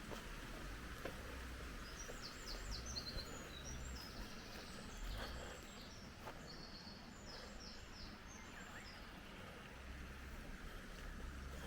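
A small bird singing two short phrases of quick high notes, about two seconds in and again past the middle, over a steady outdoor hiss. A low rumble sits under it near the start and the end.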